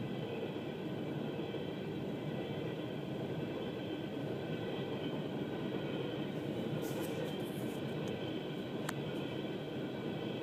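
Empty Norfolk Southern coal hopper cars rolling past at a road crossing, heard from inside a stopped car: a steady rumble of train wheels with a few sharp clicks near the end.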